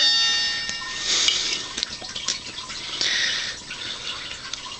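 A sharp metallic clink that rings on and fades over about a second, then two short scraping hisses about two seconds apart, over faint irregular ticking.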